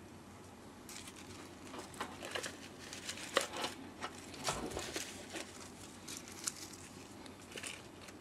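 Artificial flowers rustling and crinkling as hands handle and rearrange them in their vases, with scattered light clicks and taps of stems and leaves.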